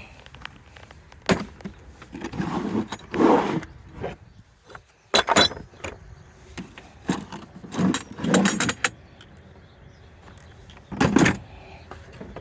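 Metal hand tools and a plastic tool case being handled: a string of clinks, clicks and clatters with some scraping, and one louder knock near the end.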